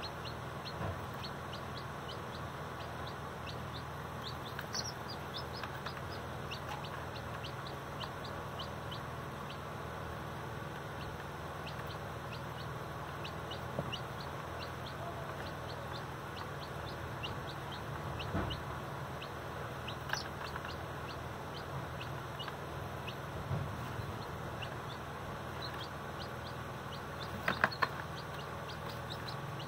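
Baby chicks peeping: a steady scatter of short, high chirps, a few each second, over a low steady hum. A few louder sounds come close together near the end.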